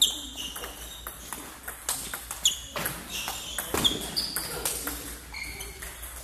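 Table tennis balls clicking sharply off paddles and the table during a rally, about one hit every second or so, with short high squeaks of sneakers on the sports flooring.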